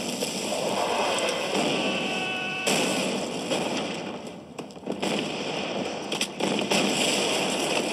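Artillery barrage on a film soundtrack: shell explosions one after another over a continuous hiss of flying debris, with a fresh heavy blast about two and a half seconds in.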